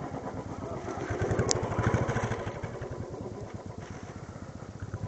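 Motorcycle engine running on the move, with a fast, even train of exhaust pulses that grows louder about two seconds in and then fades away.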